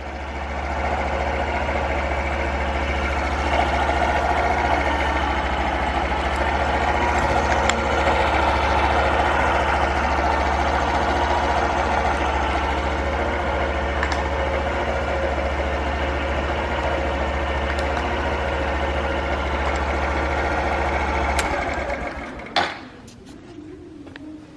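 Honda Super Cub 50 FI's small four-stroke single-cylinder engine idling steadily with no abnormal engine noise, then shut off about 21 seconds in, followed by a single clunk.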